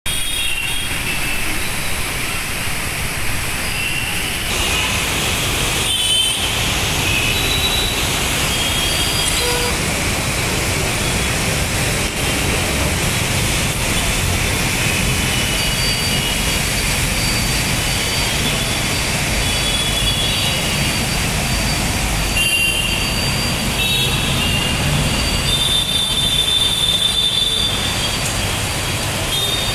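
Heavy rain and road traffic on a wet road: a steady rush of rain and tyres over a low rumble of engines, with short high-pitched tones here and there.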